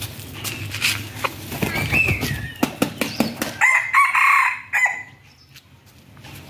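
Rooster crowing once, a call of about a second starting about three and a half seconds in. Before it come scattered clicks and scuffs.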